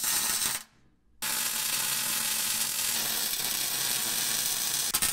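MIG welding arc on steel, a steady frying hiss: a short bead stops just after the start, then a long unbroken bead runs from about a second in.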